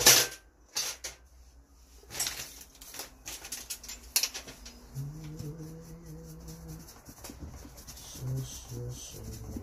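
Clicks and knocks of hand tools being picked up and handled on a workbench while a wheel of an RC truck is worked on. The loudest click comes at the very start. A low steady hum comes in about five seconds in and lasts under two seconds.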